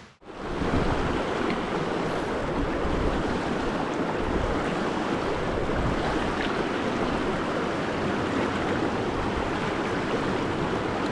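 River current rushing steadily, an even wash of flowing water that starts about half a second in.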